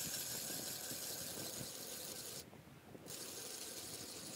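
Hand ice auger drilling through ice, its blades giving a steady scraping grind that breaks off briefly about two and a half seconds in, then resumes.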